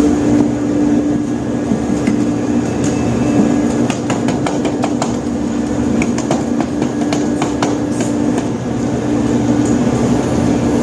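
Steady low drone of a ship's machinery. Partway through comes a run of sharp, irregular clicks and knocks.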